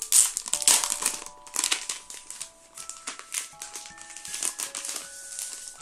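Clear plastic sleeve crinkling and crackling in rapid irregular bursts as a paper card is worked out of it, loudest in the first half. Under it runs a soft background melody of single held notes.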